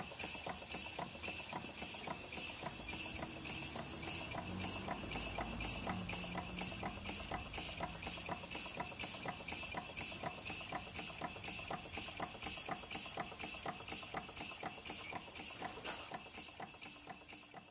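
PM Research model steam engine, a horizontal single-cylinder engine, running on compressed air at about 4 PSI: an even, rapid chuff of exhaust hiss with each stroke, with air leaking from unsealed joints. It fades out near the end.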